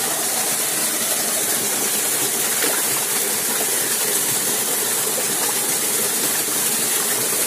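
Shallow stream running fast over rocks: a steady rush of water.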